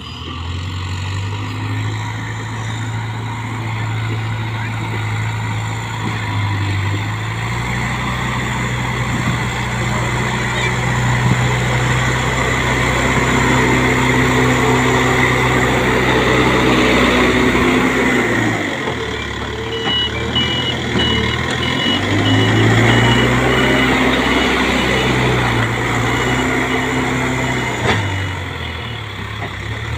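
Heavy diesel construction machine engine running under load, its speed rising and falling a few times. In the second half a reversing alarm beeps rapidly as the machine backs up.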